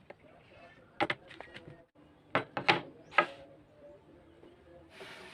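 Sharp knocks of tools striking wood in woodworking, about seven in quick clusters, followed by a short hiss near the end.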